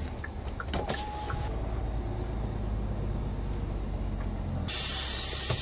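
Cargo truck's diesel engine idling with a steady low rumble, heard from inside the cab, with faint scattered clicks and a short beep about a second in. Near the end a burst of hiss sets in for about a second.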